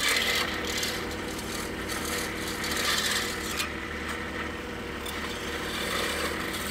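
Scroll saw running with a number 3 reverse-tooth blade, cutting through a small piece of wood: a steady motor hum under the blade's cutting noise, which is heavier in the first few seconds and eases off after about three and a half seconds.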